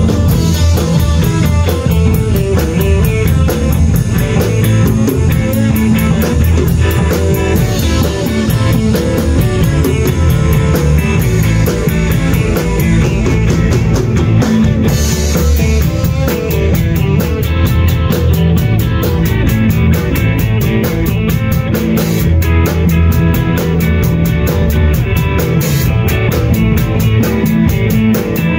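Rock band playing an instrumental passage on electric guitar, bass guitar and drum kit, with cymbals struck in a steady beat throughout.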